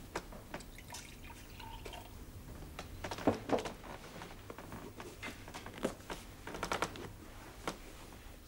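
Glassware clinking: a glass jug and drinking glasses knocked together a number of times, the loudest pair about three and a half seconds in, with some dripping and pouring of liquid.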